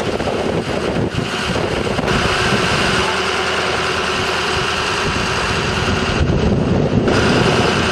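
A fire truck's engine running steadily.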